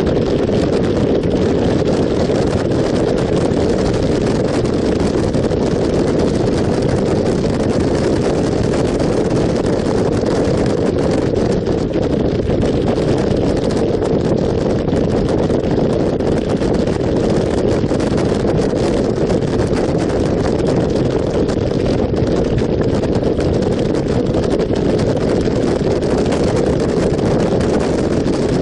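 Motorcycle riding at road speed: a steady rush of wind on the microphone, with the bike's engine and tyre noise blended beneath it.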